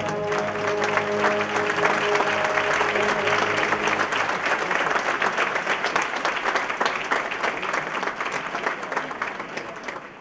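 Audience applauding as the orchestra's final held chord dies away over the first few seconds; the applause carries on and fades near the end.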